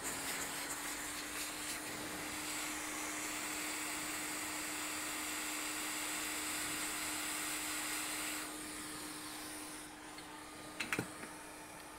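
Hot air rework gun blowing steadily onto a motherboard to desolder a MOSFET: an air hiss over a steady fan hum. The hiss eases about eight and a half seconds in, and a couple of sharp clicks come near the end.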